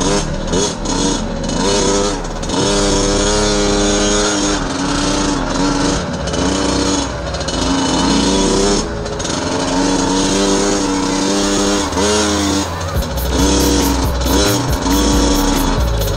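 Dirt bike engine running hard on a trail, its pitch climbing and dropping as it revs and shifts and holding steady in between, over steady wind and riding noise.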